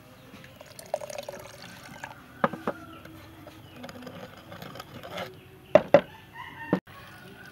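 Liquid poured from a small jug into a clay mortar of chili sauce, then stirred, with a few sharp knocks of the utensils against the mortar, a loud pair of them near the end.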